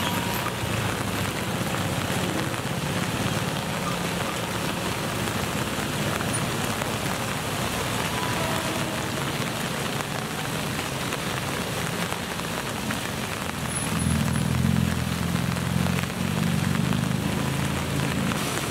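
Heavy rain falling steadily, with a CC201 diesel-electric locomotive's engine rumbling low beneath it. The engine grows louder about fourteen seconds in as the locomotive draws closer.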